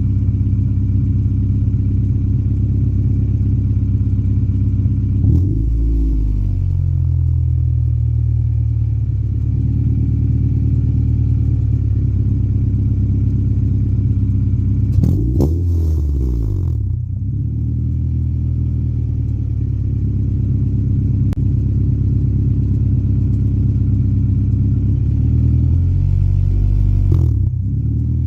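Honda Prelude engine idling steadily, blipped three times: at about five seconds, fifteen seconds and near the end the revs rise briefly and drop back to idle. It is running after sitting unused for two months.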